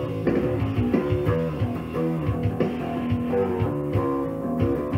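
A 1974 Rickenbacker 4001 electric bass played through an Ampeg BA110 bass amp: a continuous line of plucked notes, several a second, some of them held.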